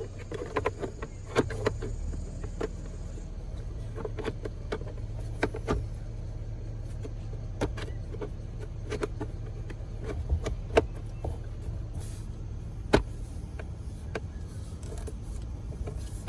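Scattered plastic clicks and knocks as a replacement glovebox latch is pushed and worked into its mounting in a Ford Territory's glovebox, the sharpest about eleven and thirteen seconds in, over a steady low hum.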